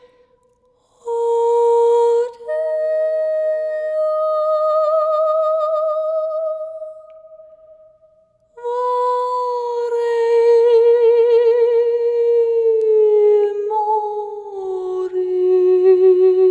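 A slow, wordless vocal melody of long held notes with vibrato, gliding between pitches. It drops out briefly about halfway through, then comes back on a note that slides slowly downward.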